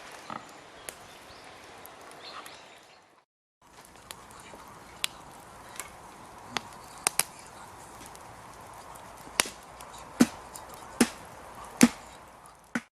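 A series of sharp knocks like chopping strikes, scattered at first and then coming about one every 0.8 seconds near the end, after a brief drop to silence.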